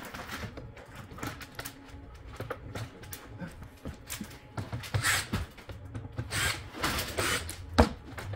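Handling noise of hands working on a ceiling cassette air conditioner's parts: scattered clicks, knocks and rustling, with louder scraping rustles about five and seven seconds in and a sharp knock near the end.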